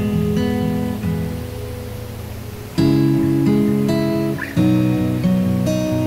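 Background music: acoustic guitar strumming chords, with new chords struck about three seconds in and again near five seconds.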